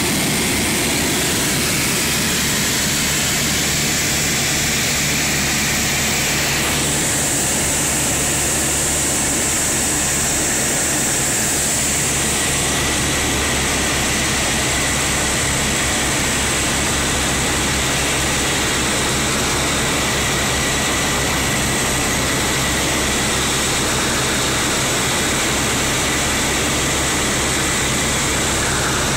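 Cabin noise of a Beechcraft BE-76 Duchess in flight: its twin four-cylinder piston engines and propellers running with a steady, loud drone. The higher whine in the noise changes about seven seconds in and again about twelve seconds in.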